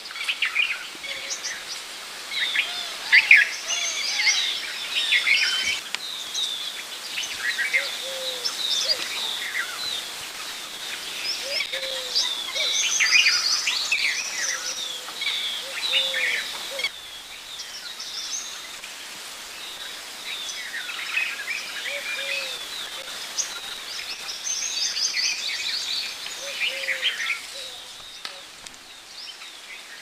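Several birds chirping and trilling over one another in a dense chorus, with a lower, short call repeating every second or two beneath them over a steady hiss of outdoor background. The background changes abruptly about halfway through.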